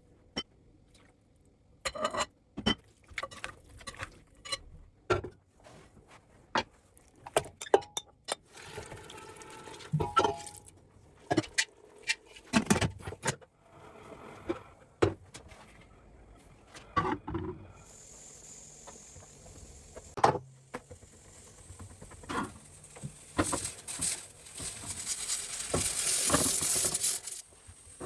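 Kitchen handling sounds: a long run of irregular clinks and knocks of dishes, pots and utensils, then, from about two-thirds in, a steady hiss that swells loudly near the end before cutting off.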